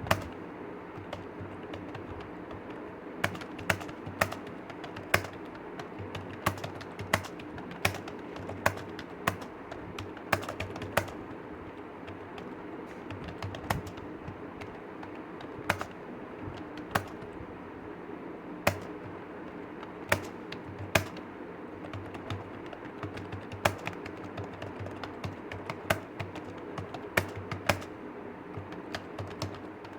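Typing on a computer keyboard: a continuous run of light keystrokes with louder, sharper clacks roughly every second, over a steady background hum.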